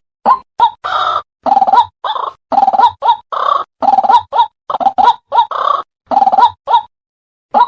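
White-breasted waterhen (ruak-ruak) calling over and over: a couple of short, sharp notes, then a fast run of longer, rougher croaking notes. The calling stops about seven seconds in, with a short note starting again at the very end.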